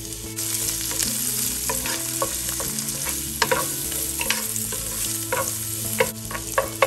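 Chopped red onion sizzling in hot ghee, the sizzle getting louder about half a second in. A wooden spatula stirring the onion scrapes and taps against the nonstick pan several times.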